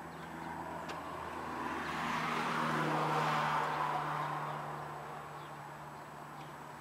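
A car passing by on the road, growing louder to a peak about three seconds in and then fading away, its engine hum dropping slightly in pitch as it goes past.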